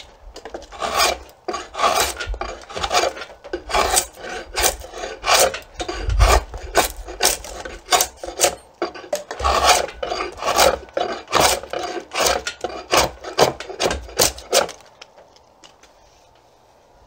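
Draw knife shaving and digging into an Osage orange bow stave in short rasping strokes, about two a second, cutting away wood around a knot to get down to the growth ring. The strokes stop about 15 seconds in.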